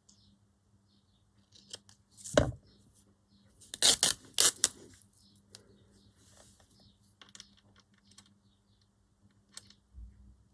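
Paper being handled and worked by hand: a sharp crisp noise with a knock on the table about two seconds in, then a loud cluster of crisp paper bursts around four seconds, and lighter rustles and clicks after.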